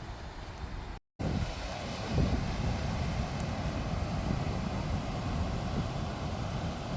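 Steady rushing noise of sea surf and wind buffeting the microphone at the shore, with a brief total dropout about a second in.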